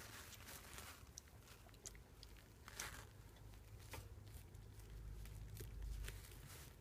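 Faint crunching, small clicks and rustling from rough collie puppies, about a month old, moving over paper pee pads and chewing at a metal bowl.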